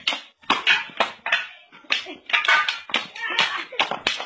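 Wooden sticks clacking against each other and against small hand shields in a mock stick fight, a quick irregular run of sharp knocks several times a second, with children's shouts mixed in.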